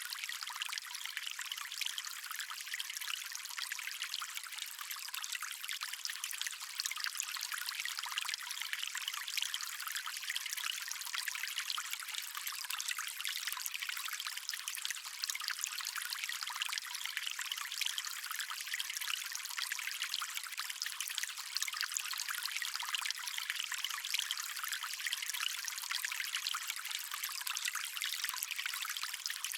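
Stream water running steadily over rocks, a continuous bright trickling and splashing with no deep rumble.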